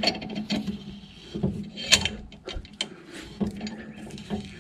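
A C-clamp being tightened against an old brake pad to push a disc brake caliper piston back into its bore, with irregular metallic clicks and knocks from the clamp screw and pad. The piston is being retracted to make room for thicker new brake pads.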